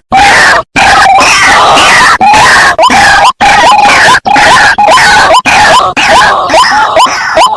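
White-breasted waterhens calling loudly: a harsh, nearly continuous run of croaking calls broken by short gaps, with short rising notes repeated about three times a second. This is a lure recording used to draw in wild waterhens.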